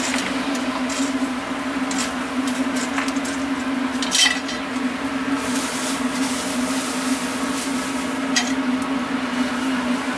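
Hagfish roasting on a wire grill over a straw fire: scattered crackles and clicks from the burning straw and grill, loudest about four seconds in, over a steady low hum.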